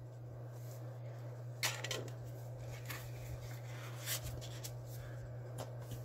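A few light clicks and rubs as a Zippo lighter in its metal gift tin is handled and put away, over a steady low hum.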